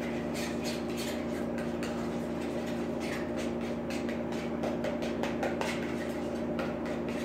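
Small metal spoon stirring thick sauce in a metal mixing bowl, clinking and scraping against the bowl's sides in quick repeated strokes, a few a second.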